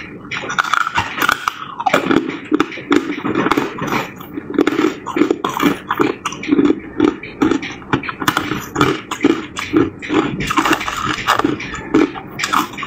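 Ice chunks crunched and chewed between the teeth close to the microphone, in a steady rhythm of about two crunches a second.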